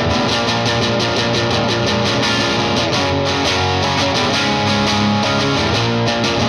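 Electric guitar, a Fender Custom Shop '57 Stratocaster, played through an MXR Duke of Tone overdrive pedal in its OD mode into a slightly driven Vox AC15. It plays fast, steady picked chords with an overdriven, gritty tone.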